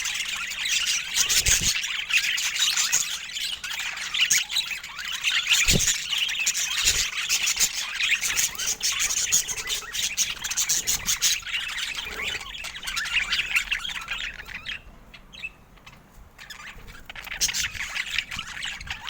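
Budgerigars chattering and warbling in quick, overlapping high chirps, with two low thumps in the first six seconds. The chatter drops off for a couple of seconds about three-quarters of the way through, then picks up again.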